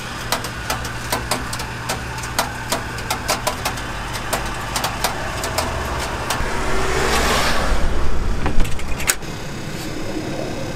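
Rotisserie chicken oven with its spits turning, giving irregular sharp ticking clicks, two or three a second, over a steady low hum. A passing vehicle swells up from about six seconds in and dies away after nine.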